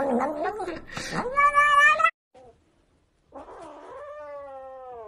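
Cat yowling loudly in wavering cries, ending in a rising meow that cuts off about two seconds in; after a short gap, a quieter, drawn-out falling kitten cry.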